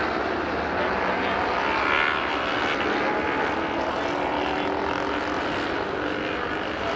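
Racing motorcycle engines running at high revs as bikes lap the course, with several engines heard together. Their pitch rises and falls with throttle and gear changes.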